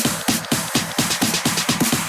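Electronic dance music with a fast, steady four-on-the-floor beat and a hi-hat pattern.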